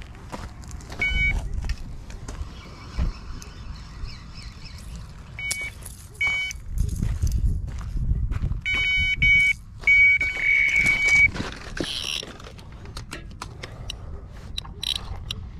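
Electronic carp bite alarm beeping in a few short bursts, then quicker beeps and one longer run of tone about ten seconds in, as a fish takes line on the carp rod.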